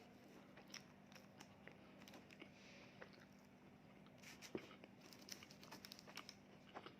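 Faint close-up eating sounds: a person biting and chewing fast food, with scattered crisp crunches and mouth clicks that come thickest in the second half.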